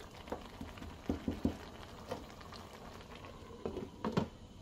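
Stew bubbling in a large pot while a cooking spoon scrapes and knocks against the pot as it is stirred. A glass lid clanks down onto the pot near the end, the loudest knock.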